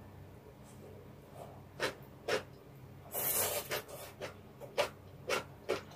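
Close-miked eating of stir-fried ramen noodles: a short slurp about three seconds in, with wet chewing clicks around it, about two a second in the second half.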